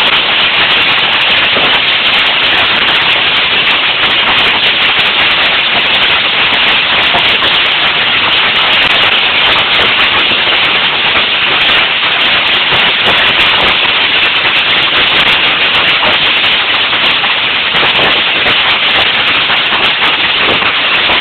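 Hail falling hard: a loud, steady, dense clatter of hailstones striking the ground and nearby surfaces.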